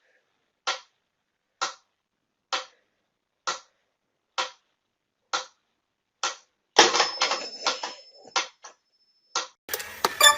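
Even ticking, about one tick a second, then a louder clatter and rustle with a thin, steady high whine.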